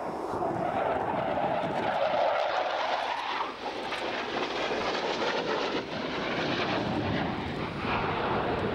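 Jet noise from a Panavia Tornado's twin RB199 turbofan engines as it flies an airshow display, a steady roar that is loudest in the first three seconds or so.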